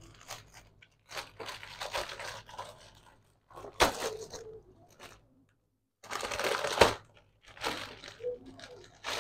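Clear plastic poly bag crinkling and rustling in several separate handfuls as a folded garment is worked out of it. The loudest crinkle comes about two-thirds of the way through.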